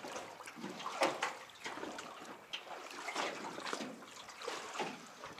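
Small waves lapping and splashing against the side of a boat hull in an irregular run of slaps.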